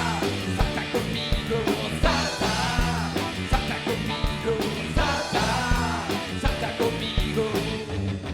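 A rock band playing live: drums keep a steady beat under electric guitars and bass, with no singing.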